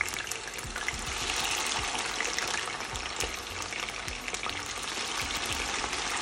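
Slices of ripe plantain deep-frying in hot oil just after going into the pan, a steady sizzle with fine crackling.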